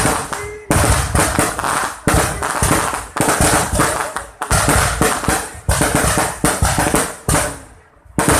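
Fireworks display with aerial shells going off in quick succession: a loud bang about every second, each one fading out before the next.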